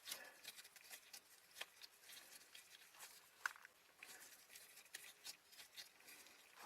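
Near silence with faint, scattered small clicks and rustles, and one sharper click about halfway through.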